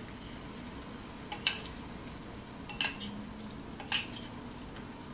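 A metal fork clinking three times against a ceramic bowl as gnocchi are stirred into pesto, each clink short and ringing.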